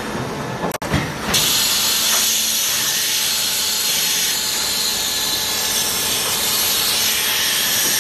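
A steady, loud hiss of compressed air starts about a second in, from the tile stacker's pneumatic suction heads, over running factory machinery. A brief knock comes just before the hiss starts.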